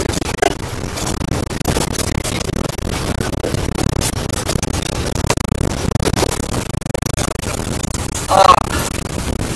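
Moving bus heard from inside the cabin: steady engine and road noise with frequent small rattles. A short pitched sound about eight seconds in is the loudest moment.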